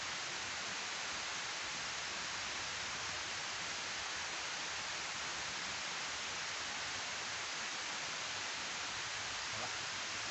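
Water pouring down a steep concrete weir spillway into the pool below: a steady rushing hiss.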